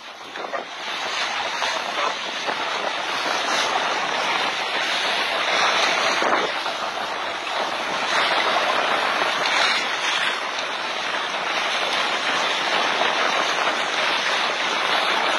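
Steady rushing noise of a small boat under way on choppy open sea, water and wind against the hull and microphone, swelling now and then.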